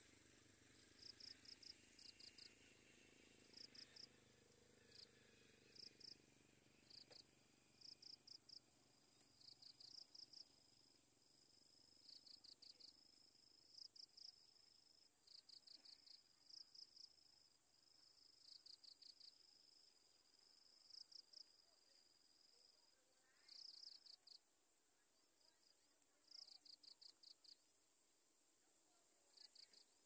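Insects chirping faintly, cricket-like: short runs of a few quick high-pitched pulses repeating every second or two, with a thin steady high trill running for a stretch in the middle.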